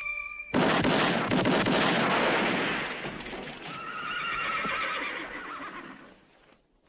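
A horse neighing: a loud, long whinny that starts suddenly about half a second in, wavers in pitch and fades out over several seconds.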